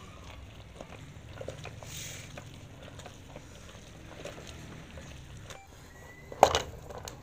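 Wooden madhani masher churning and pounding boiled mustard greens in an aluminium pressure cooker: soft, low mashing with scattered light ticks, and one sharp knock of wood on the pot about six seconds in.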